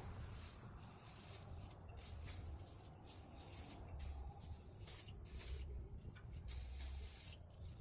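Faint, irregular scratchy hissing strokes from hand-cleaning the grimy housing of a Chevy TBI injector pod, over a low steady hum.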